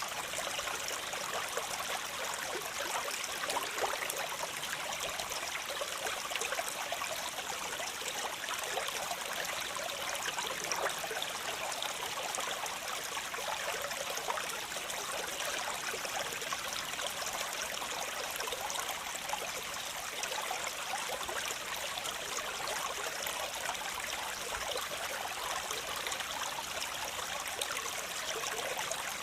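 Waterfall: water falling and splashing in a steady, unbroken rush with a fine trickling texture.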